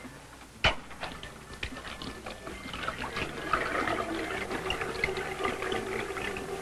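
A sharp knock about half a second in, then a washroom tap running into a washbasin, building up and spattering, with a steady hum underneath.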